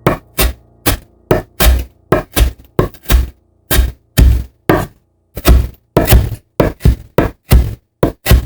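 A knife chopping on a cutting board, about twenty strokes at an uneven pace of two to three a second, each a solid thunk.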